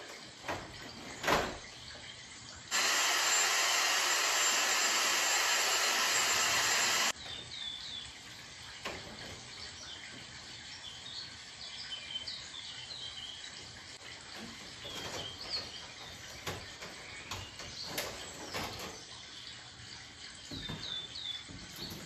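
A steady spray hiss starts sharply about three seconds in and cuts off about four seconds later while a wall-mounted air conditioner's indoor unit is cleaned. Before it come a couple of light knocks, and after it small birds chirp now and then.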